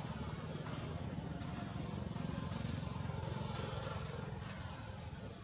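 Steady low rumble of an engine running, with a few faint clicks on top.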